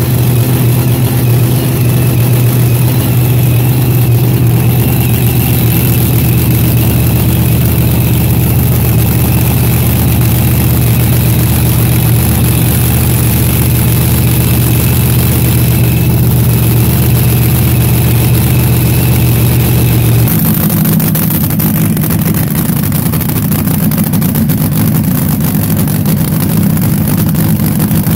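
Supercharged drag-racing engine of a funny car running loudly and steadily at idle, a deep even hum. About twenty seconds in the sound changes abruptly to a rougher, higher-pitched running.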